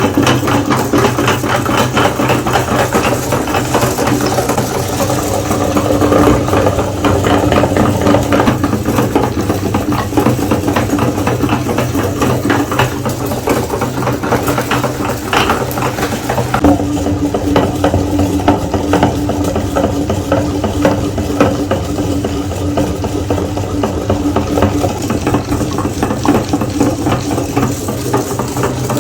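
Electric meat grinder running steadily with a continuous rattle as Oreo cookies are fed through and ground.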